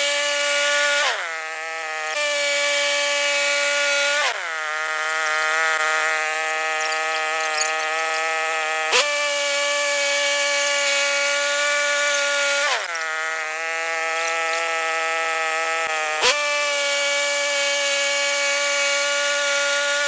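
Woodland Mills HM126 portable band sawmill running through a cedar log: the saw head's small gas engine and band blade make a loud, steady whine. The pitch sags and recovers several times, about every four seconds, as the load on the engine changes during the cut.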